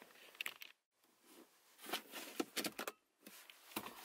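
Faint clicks and light rattles of small objects being handled in a car's center console storage bin, twice dropping briefly to dead silence.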